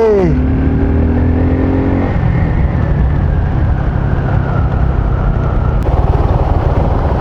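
Motorcycle engine running steadily at road speed, with rushing noise from riding. A pitched whine in the first two seconds fades out, leaving an even rumble.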